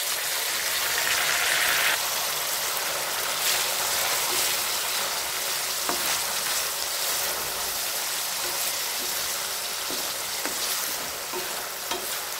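Chopped tomatoes sizzling in hot oil in a kadai with fried onions and green chillies, loudest for the first two seconds as they go in. A wooden spatula stirs them, with a few light knocks against the pan.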